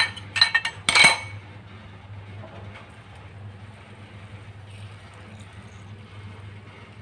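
Stainless steel cooking pot clinking and clanking against the metal pan support of a gas stove burner as it is lifted off, a quick run of ringing metallic knocks within the first second or so. After that only a low steady hum remains.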